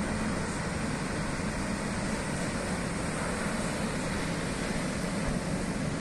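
Steady rushing outdoor noise with a deep rumble and no distinct events.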